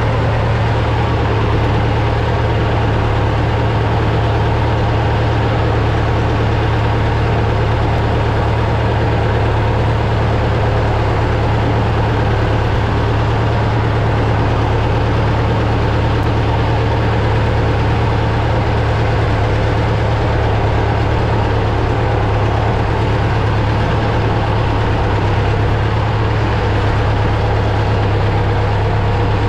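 A truck's engine running steadily at an even speed, with a constant low hum.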